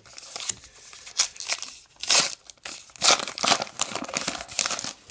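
A baseball card pack's crimped wrapper being torn open and crinkled by hand, a run of crackly rustles with the loudest tearing just after two seconds and again around three seconds in.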